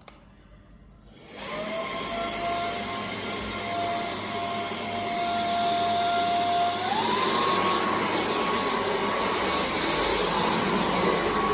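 Xiaomi Mi Vacuum Cleaner Light (MJWXCQ03DY) motor switching on and running with a steady whine, which steps up to a higher pitch about halfway through as it goes to a higher power setting.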